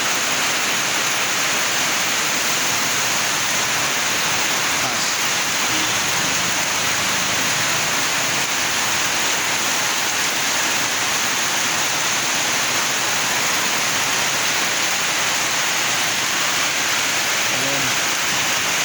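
Heavy rain pouring down steadily, a dense unbroken hiss.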